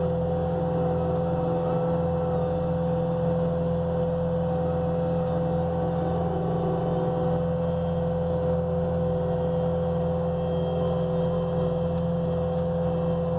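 Caterpillar 242D skid steer's diesel engine running steadily, with a constant whine over the low engine hum.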